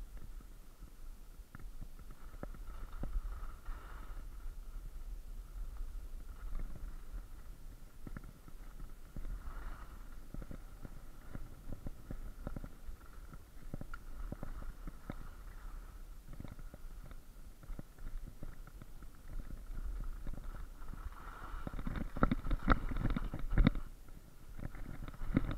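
Skis scraping and chattering over packed snow, with a low rumble of wind and movement on a chest-mounted camera, under many small knocks. The scraping and knocks grow louder for a couple of seconds near the end.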